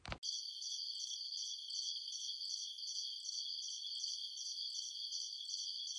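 Crickets chirping in a steady, rapid rhythm of several pulses a second, thin and high-pitched.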